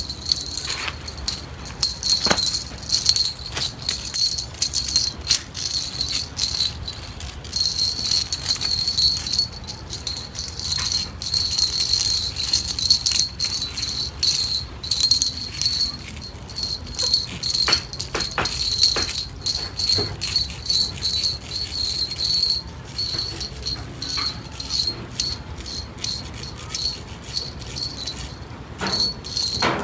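A cluster of small jingle bells on a cat wand toy jingling and rattling in quick, irregular shakes as kittens bat and tug at it.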